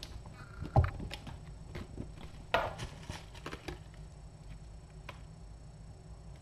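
Cats moving about on a carpeted floor: light patter and clicks of paws, a sharp thump about a second in and a short noisy scuffle a little later.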